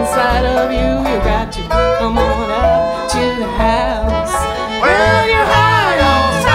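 Live bluegrass band playing an instrumental passage on fiddle, acoustic guitars, mandolin, dobro and upright bass. Sliding, bending lead notes come in during the second half.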